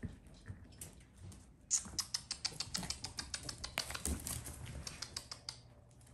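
Toy schnauzer puppies' claws clicking and tapping on a stone tile floor as they scamper about. A quick, uneven run of taps starts a little under two seconds in and stops about half a second before the end.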